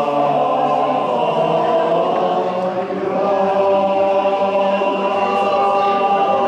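Men's choir singing long held notes in several parts.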